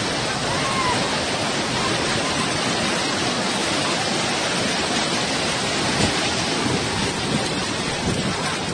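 Floodwater rushing in a fast, muddy torrent down a street: a loud, steady rush of water.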